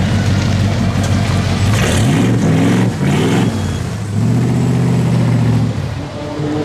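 Cobra-style roadster's engine idling, blipped twice about two and three seconds in, then pulling away under steady throttle and fading near the end.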